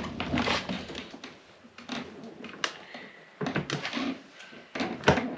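Hands working a saddlebag latch light and its wire into place: scattered sharp clicks and knocks over a low rustle.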